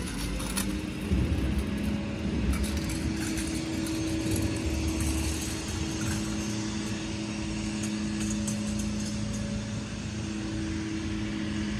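Urban outdoor ambience dominated by a steady mechanical hum with a low rumble beneath it, unchanging throughout.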